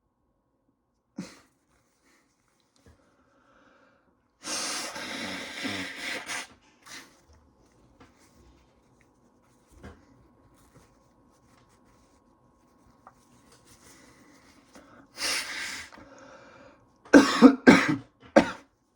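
A person sneezing and coughing from a nose irritated by sawdust: a long breathy burst about four and a half seconds in, another around fifteen seconds, then a quick run of four short bursts near the end, the loudest of all.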